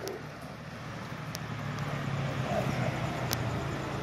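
A motor vehicle's steady low engine hum over road noise, slowly growing louder.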